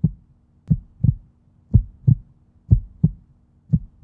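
Heartbeat sound effect: slow double-beat thuds, lub-dub, about once a second, over a faint steady hum.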